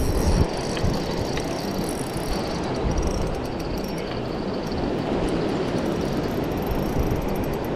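Wind rumbling on the microphone over breaking beach surf, with a faint high whir and ticking from a spinning reel being cranked to bring in line.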